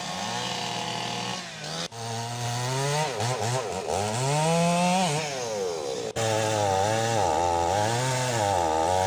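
Chainsaw running and revving up and down repeatedly while cutting through a fallen tree. The sound breaks off briefly twice, about two and six seconds in.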